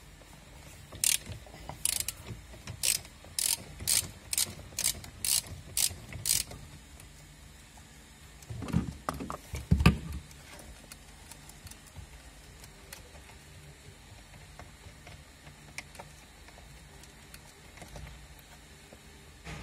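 Socket ratchet clicking through about ten strokes, roughly two a second, as it unscrews the steering wheel's centre bolt, followed about four seconds later by a couple of dull thumps.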